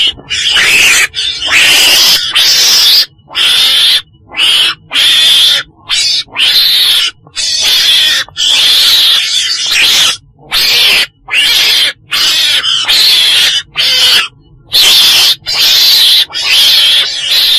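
Calls of a weasel (Mustela), the 'chồn đèn': a long run of loud, raspy calls, each under a second or so, following one another with short breaks.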